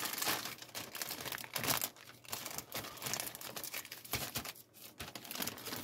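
Clear plastic bag holding a model kit's parts trees crinkling and rustling as it is handled, in irregular crackles.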